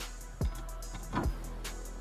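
Background music with deep bass drum hits that slide down in pitch, two of them, under light scraping and tapping of a knife on a cutting board as raw chicken thighs are cut up.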